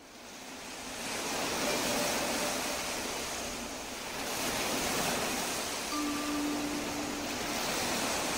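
Ocean surf washing in, a rushing noise that fades up over the first second and then swells and ebbs. About six seconds in, a soft bell-like ringing tone sounds briefly.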